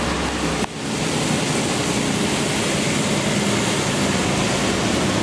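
Water spraying in a steady hiss as a muddy toy bus is washed. The hiss breaks off briefly under a second in, then carries on evenly.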